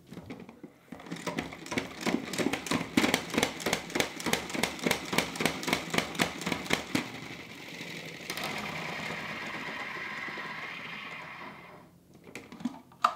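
Pump-style salad spinner spin-drying washed lettuce: the plunger is pumped rapidly for about six seconds, each stroke a clatter of clicks, then the basket spins on by itself with a steady whirr that dies away, followed by a single sharp click near the end.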